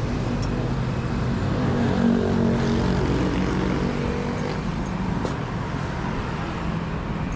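Motorbike street traffic: steady engine noise with a motorbike engine running close by, loudest about two seconds in.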